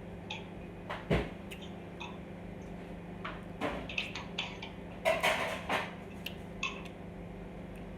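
Scattered clinks and knocks of tableware, dishes and utensils handled at a meal, with the loudest knock about a second in and a cluster around the middle. A steady low hum runs underneath.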